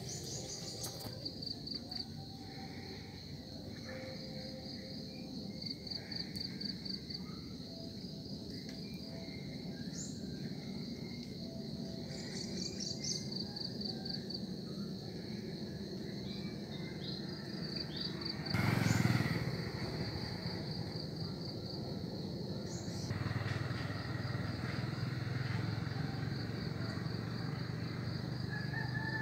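Outdoor ambience of insects chirping in a high, steady band of repeated pulsed trains, with a few higher bird-like chirps. A short loud noise comes a little past the middle, and a low steady hum joins about three-quarters of the way through.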